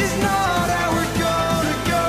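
Background music: an electronic pop track with a steady beat.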